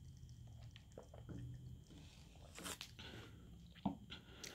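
A person drinking from a cup: quiet gulps and swallows with a few small mouth clicks, one sharper click near the end.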